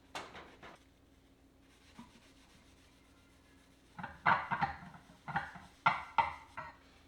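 Rubbing strokes, likely from cleaning: one short stroke at the start, then a quick run of about six strokes from about four seconds in.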